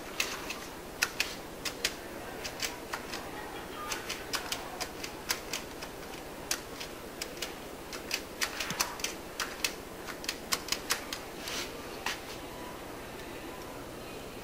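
Payphone keypad buttons pressed again and again: a long run of irregular sharp clicks, a few a second, which stop about twelve seconds in.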